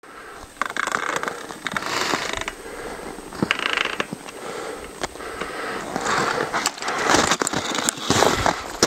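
Footsteps crunching on frozen snow, a grainy crunch roughly once a second with a few sharp clicks between.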